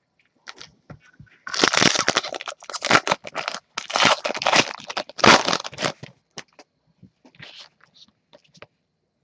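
Foil trading-card pack wrapper being torn open and crinkled: about four seconds of dense crackling, beginning a second and a half in, that dies down to a few faint rustles.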